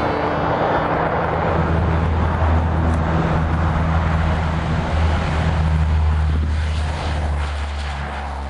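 Ski-equipped LC-130 Hercules transport plane taking off, its four turboprop engines giving a loud, steady low drone that fades out near the end.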